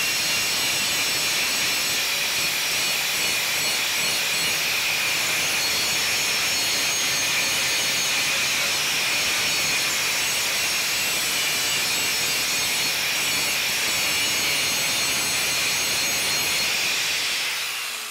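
Handheld angle grinder running at full speed, its abrasive disc grinding the cutting edge of a steel lawnmower blade clamped in a vise: a steady high whine with a grinding rasp. The sound falls away near the end as the grinder is switched off.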